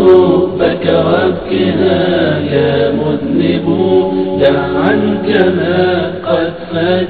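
Melodic religious vocal chanting, the sung lines gliding up and down.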